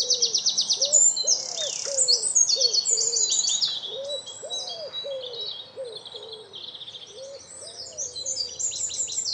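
Songbirds singing together, many overlapping high chirps and fast trills, over a low hooting note repeated about twice a second.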